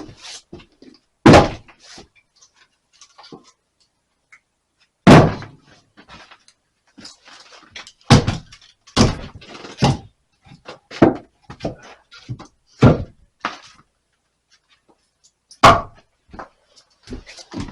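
A series of heavy thuds and knocks at irregular spacing, about ten in all, the loudest about a second in and about five seconds in.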